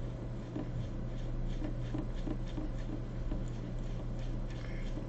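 Paintbrush softly scraping and tapping as it stirs gouache with water into a thick paste, a run of light strokes about three a second, over a steady low hum.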